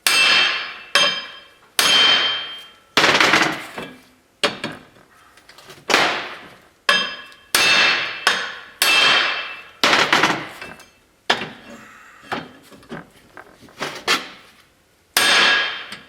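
Hammer tapping new 7/16-inch wheel studs in a GM 12-bolt axle shaft flange, a strike roughly every second, each hit ringing out metallically. The taps seat the freshly pressed-in studs square in the flange.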